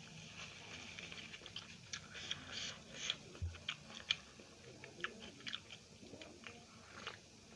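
Close-miked chewing: irregular wet smacks and clicks of a mouth eating food, with a brief low thump about three and a half seconds in.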